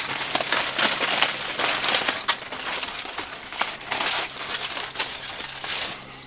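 Aluminium kitchen foil crinkling and crumpling irregularly as it is folded and pressed by hand around a rack of pork ribs, easing off near the end.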